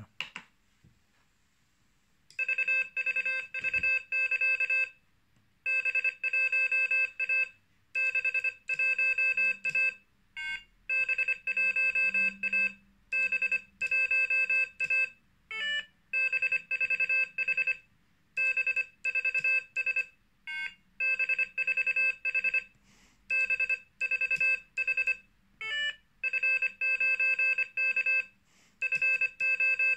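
Morse code sent as groups of short and long beeps at one steady pitch from the Morserino-32's small speaker, starting about two seconds in: three-character call signs played by the trainer and keyed back on the paddle. Brief beeps of a different pitch between some groups are its correct or error signal tones.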